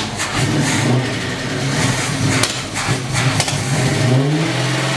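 Holden VK Commodore engine running at a fast idle on its first start in about ten years, with scattered sharp ticks over it. The revs rise about four seconds in.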